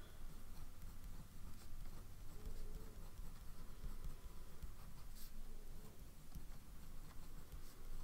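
Pilot E95S fountain pen's medium nib writing on a paper card: quiet scratching of the nib across the paper as the letters are formed, with a couple of light ticks.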